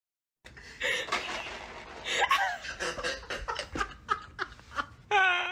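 A person laughing in repeated breathy bursts, starting about half a second in, with a loud high-pitched call near the end.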